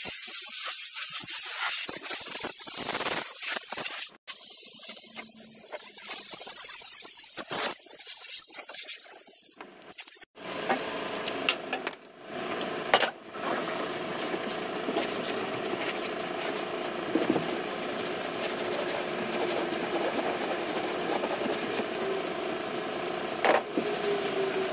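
Compressed air hissing from a blow-gun nozzle, loud for the first couple of seconds and then on and off, blowing grinding dust out of holes in fibreglass. From about ten seconds in, a steady machine hum runs underneath, along with a cloth rubbing over the surface.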